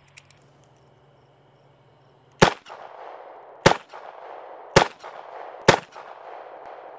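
Ruger LCRX 3-inch double-action revolver fired four times, the shots about a second apart starting about two and a half seconds in, with a fifth shot at the very end. A faint click comes just after the start.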